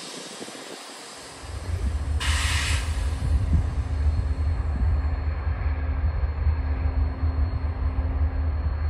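BNSF diesel locomotives' engines rise to a deep, steady rumble about a second and a half in as the light engine consist moves slowly. A short hiss of air comes about two seconds in.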